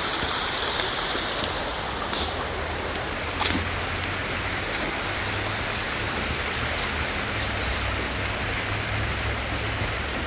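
Steady rushing of running water from a stream, with a few faint taps of footsteps on wooden steps.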